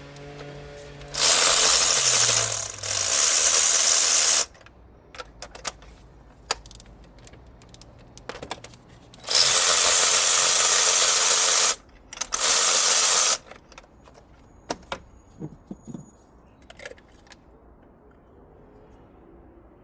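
Four loud bursts of even hissing, rushing noise from a workshop tool, each one to two and a half seconds long, with sharp clicks and taps of tools on metal between them.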